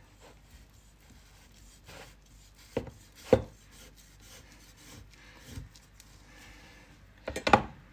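A large kitchen knife scores the rind of a raw pork joint, rasping through the skin and knocking on the cutting board. There are two sharp knocks about three seconds in and a quick cluster of knocks near the end.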